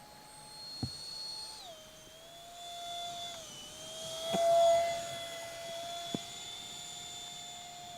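Small electric ducted fan of an RC jet whining in flight, its pitch stepping down twice in the first few seconds. About halfway through it swells into a loud rushing pass, then settles back to a steady whine, with a few short clicks.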